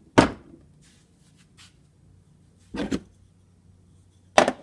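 Old hand tools knocking as they are lifted out of a tool box and set down: a sharp knock just after the start, a double knock about three seconds in, and another sharp knock near the end, with faint light clicks in between.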